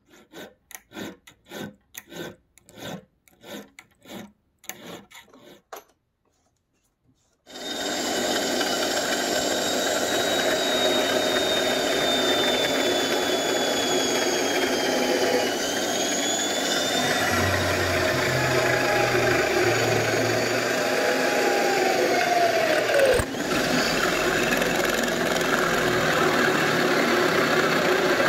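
Drill in a drill stand boring a small hole into the side of a metal rod-end bearing clamped in a vise: a steady grinding run with a thin squeal that wavers and glides in pitch, starting about seven seconds in. Before it, soft rhythmic scraping at about two strokes a second.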